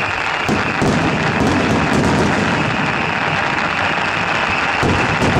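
Aerial fireworks going off in a dense barrage, with booms and crackle running together. Heavier volleys start about half a second in and again near the end.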